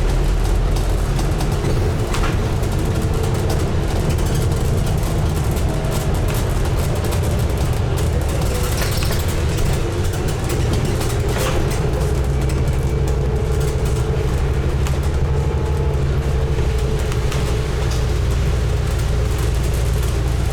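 Scania N250UD double-decker bus's five-cylinder diesel engine running steadily with a low drone, heard from inside the bus, with road noise and a few faint rattles and knocks.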